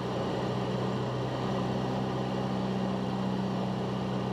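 Cessna 172's piston engine and propeller droning steadily in cruise flight, one even, unchanging tone.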